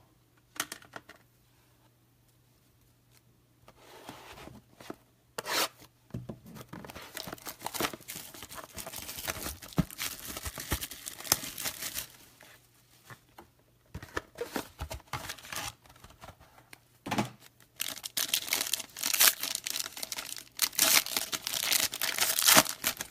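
Trading-card packaging being torn open and crinkled, starting a few seconds in. It comes in crackly spells with a short pause in the middle, and the crackling is loudest near the end.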